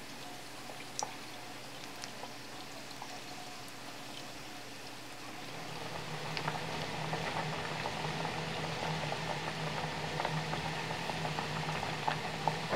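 Battered potato pieces deep-frying in a pot of hot oil, the oil sizzling and bubbling steadily with scattered pops. About five seconds in the sizzling grows louder and denser with frequent crackles, and there is one sharp loud crackle right at the end.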